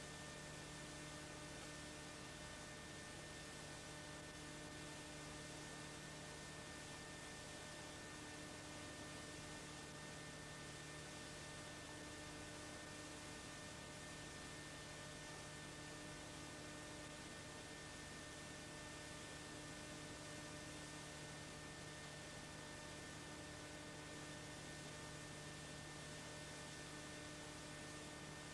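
Steady electrical hum with several fixed tones over an even hiss, unchanging throughout.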